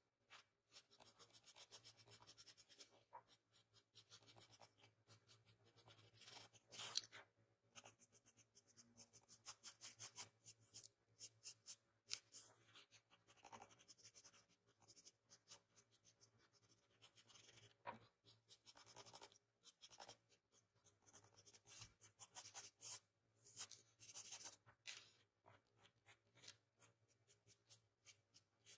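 Faint scratching of a drawing pencil on paper in many quick, short strokes.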